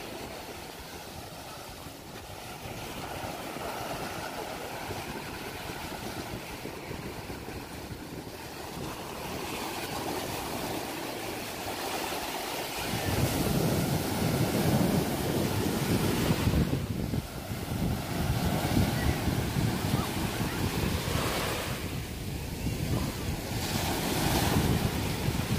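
Ocean surf breaking on a sandy beach, with wind buffeting the microphone. About halfway through, the surf and the wind rumble get louder.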